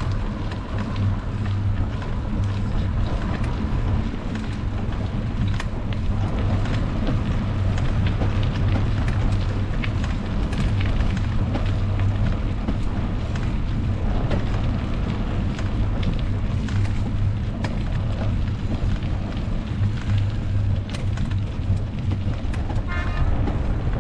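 Steady low rumble of wind on the microphone, mixed with road noise from a bicycle being ridden along a highway, with a few faint clicks.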